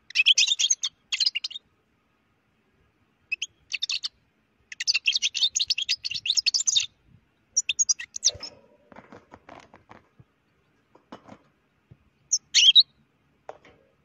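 European goldfinch singing in a cage: several bursts of rapid, high twittering song, the longest lasting about two seconds in the middle, then a single short call near the end.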